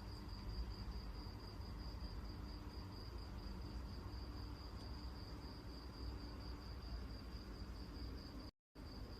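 A cricket chirring: one steady, high, slightly fluttering trill over a low background rumble. It cuts out for a moment near the end.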